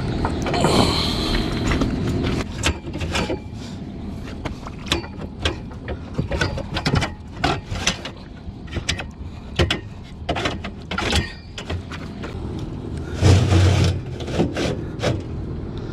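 Metal clanks, clicks and scrapes as a new tubular furnace heat exchanger is handled and fitted into a gas rooftop unit's cabinet, with a heavier thump near the end and a steady low rumble behind.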